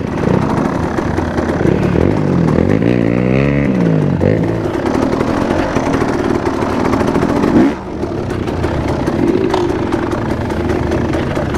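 Enduro dirt bike engine revving, its pitch rising and falling a few times about two to four seconds in, then running steadily under load, with a brief drop in level near eight seconds before it picks up again.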